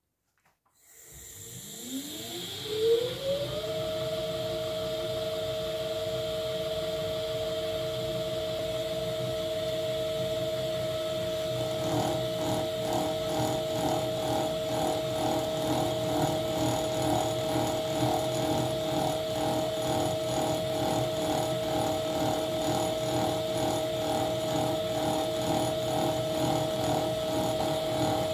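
Ajax horizontal milling machine starting up: its three-phase 8-pole motor, run from a VFD, whines up in pitch over about two seconds, with a few knocks, and settles into a steady hum of motor and belt drive. About twelve seconds in, the 5-inch cutter starts cutting aluminium, adding a rhythmic pulse about twice a second.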